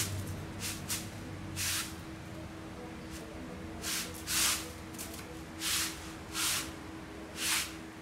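Kitten hissing: a series of short, sharp hisses, about six of them at irregular intervals. It is a defensive threat display by a kitten squaring up to fight.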